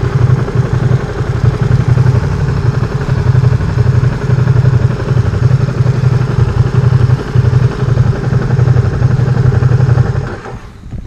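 Ducati Streetfighter V2's L-twin engine idling with a steady, rapid pulsing beat. The engine sound drops away about ten seconds in.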